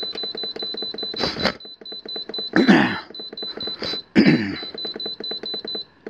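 Alpicool C20 portable fridge's control panel giving a rapid run of short, evenly spaced high beeps as its setpoint button is held to step the temperature up to 40°F. Three brief sounds falling in pitch break in, the loudest a little under halfway.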